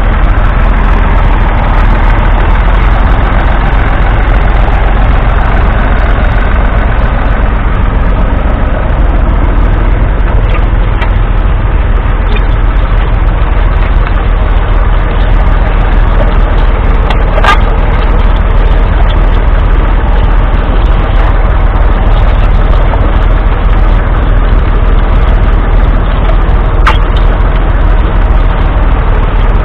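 Massey Ferguson 135's 2.5-litre three-cylinder diesel engine running steadily under load as the tractor pulls a two-furrow mounted plough through the soil, heard close and loud. A sharp click sounds about halfway through and another near the end.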